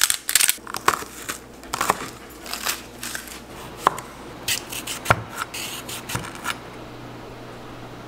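Food-prep sounds: an irregular run of short knocks, crinkles and scrapes from dry rice and its plastic bag at a saucepan, and a chef's knife cutting a cucumber on a cutting board. The sounds are thickest near the start and stop after about six and a half seconds.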